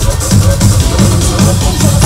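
Loud electronic dance music played live at a concert, picked up on a phone's microphone, with a heavy pulsing bass.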